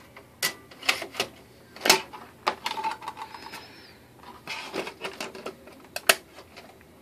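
About a dozen sharp clicks and clacks of hard plastic at an irregular pace, from hands working a computer and its keys.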